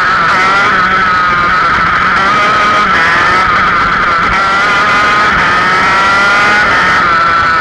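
Go-kart engine running hard, heard close up from the kart's onboard camera. The engine note wavers through a bend, climbs steadily for about two seconds, then drops about a second before the end.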